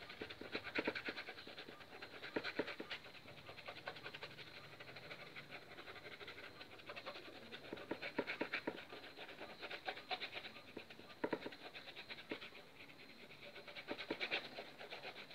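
Paintbrush scrubbing and dabbing on canvas: a fast, dry scratching that swells into louder spells every few seconds.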